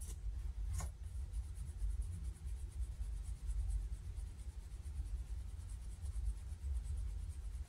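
Shrimp in seasoned flour being shaken inside a lidded plastic tub: a soft, rhythmic shuffling and rattling, with one sharp click about a second in.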